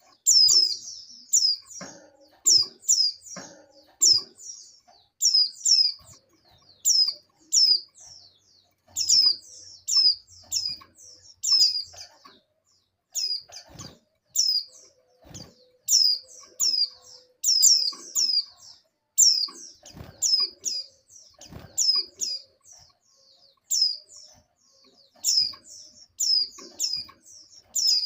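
Female white-eyes (pleci) calling: short, high, downward-sweeping chirps in quick runs of two to four, repeated over and over, with faint low knocks in between. These are the calls of females in breeding condition calling for males, used to lure a male into singing.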